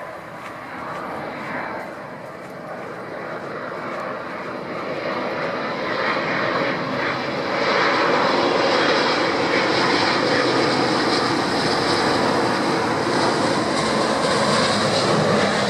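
Airliner engines, growing louder about six seconds in and then staying loud and steady.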